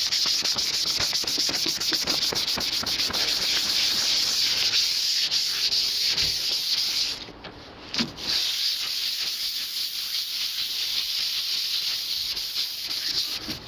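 Hand sanding of a primed car hood with a sheet of 400-grit sandpaper pressed flat under the palm: a steady, rapid scratchy rubbing, smoothing the primer before painting. It stops for about a second midway, then carries on.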